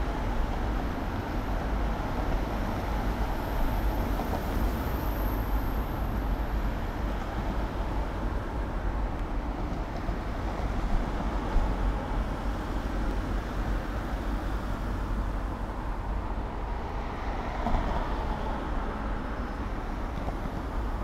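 Steady background road-traffic noise: a continuous low rumble and hiss with no single vehicle standing out.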